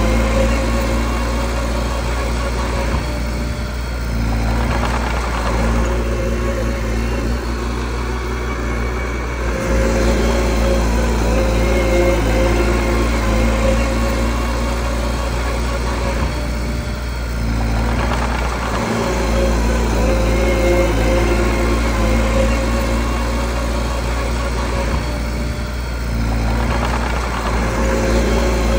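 Small bulldozer's diesel engine running steadily, easing off and picking up again a few times as it works.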